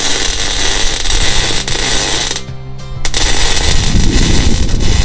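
Electric arc welding on the steel keel: a steady crackling hiss from the arc that breaks off for about half a second midway, then starts again when the arc is struck again.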